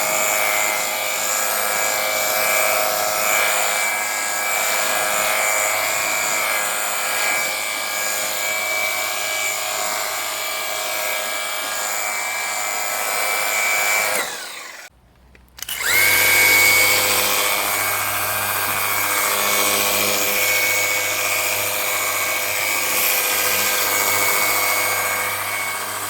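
Jimmy JW31 cordless pressure washer running, its battery-powered pump motor giving a steady whine over a hiss. It spins up with a short rising whine, stops for about a second some fourteen seconds in, then spins up again and runs on.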